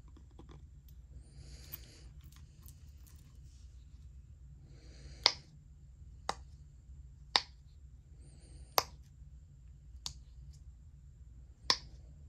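Silicone push-pop bubbles on a snowflake-shaped fidget keychain being pressed in by a fingertip: six sharp pops, about one to one and a half seconds apart, beginning about five seconds in, after some faint handling.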